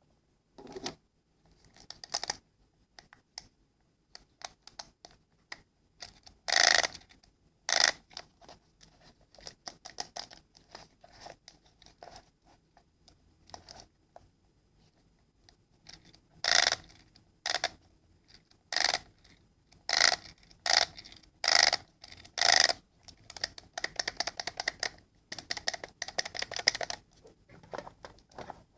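Irregular short scrapes, clicks and crackles of small objects being handled, with louder rustling bursts about a quarter of the way in and then close together through the second half.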